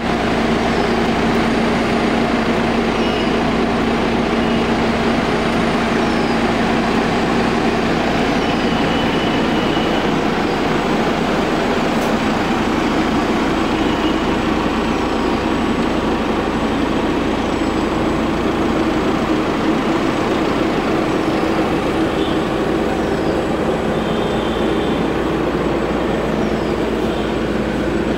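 Diesel engine of a 2013 Toyota passenger van idling steadily, an even hum with a constant low drone.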